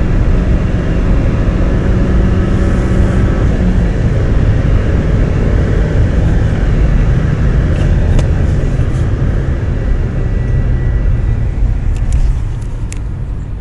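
Renault Megane II's 1.6 petrol four-cylinder engine pulling hard at high speed, heard inside the cabin with heavy wind and road rumble. A steady engine tone stands out for the first few seconds before the wind and road noise take over, and the sound eases off near the end.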